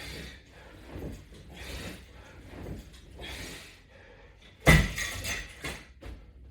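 A man breathing hard in short, regular breaths about once a second while doing crunches. A single loud knock lands about two-thirds of the way through.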